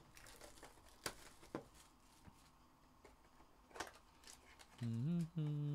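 Soft handling of a cardboard trading-card box and its cards, with a few faint clicks and taps. Near the end a man's voice starts and holds a drawn-out word.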